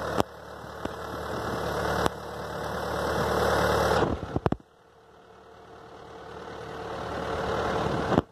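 Kubota M8540N narrow tractor's four-cylinder diesel engine running as the tractor drives along. Its level swells steadily and then drops back sharply several times, about 2, 4 and 8 seconds in.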